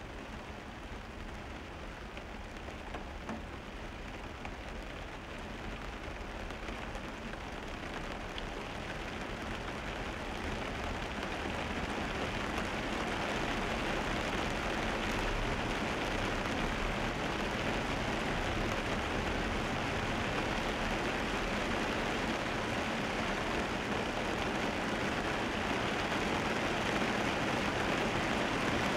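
Steady rushing hiss heard inside a car moving on a rain-wet road, with tyres on wet asphalt and rain. It grows louder over the first dozen seconds, then holds steady.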